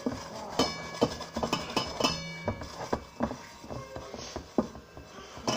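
Stainless steel pot being handled and cleaned: irregular metal knocks and clinks against it, the stronger ones in the first couple of seconds ringing briefly.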